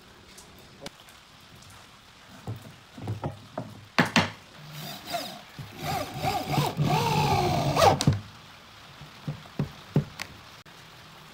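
Electric drill boring into a pine frame, running for about three seconds in the middle with its pitch wavering under load and cutting off suddenly. Sharp knocks of wooden pieces being set against each other come before and after.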